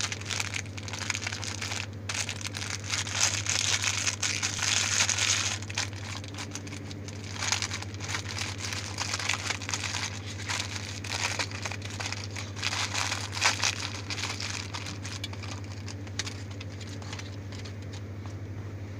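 Thin clear plastic packaging bag crinkling and crackling as it is handled and opened to get a microfiber cloth out, busiest in the first few seconds and dying away near the end. A steady low hum runs underneath.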